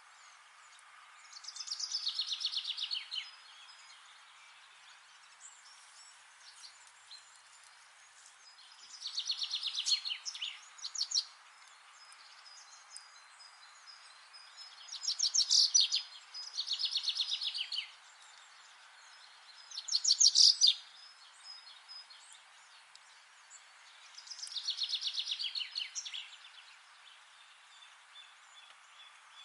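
A songbird singing, repeating a short, fast trilled phrase that drops in pitch, six times with pauses of a few seconds between, over a faint steady background hiss.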